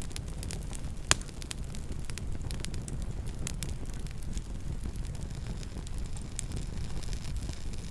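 Campfire burning: a steady low rush of flame under frequent small crackles, with one loud pop about a second in.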